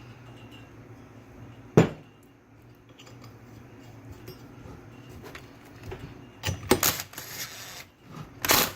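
Metal tools and power steering pump parts being handled while the pulley goes back on the pump: one sharp metallic knock about two seconds in, then a cluster of clinks and rattles near the end, over a low steady hum.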